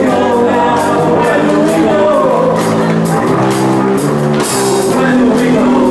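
Live rock band playing loud: electric guitars, bass and a drum kit with regular cymbal hits, and a voice singing over them.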